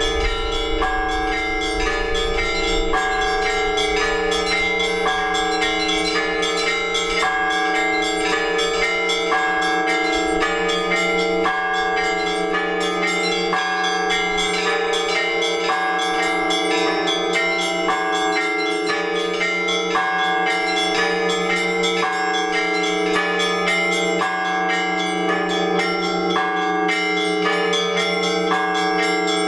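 Several Orthodox church bells rung together in a continuous peal. The small bells strike in quick, repeating figures over the lasting hum of the larger bells.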